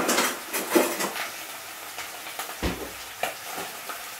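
Kitchen clatter of cookware and utensils: a few light clinks and knocks in the first second, a dull thump about two and a half seconds in, and one more click soon after.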